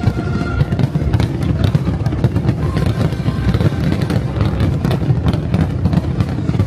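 Fireworks bursting and crackling in quick, irregular succession, with music playing underneath.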